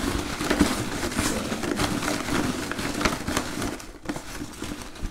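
A deck of cards being shuffled by hand: a dense run of rustling and quick clicks that stops about four seconds in.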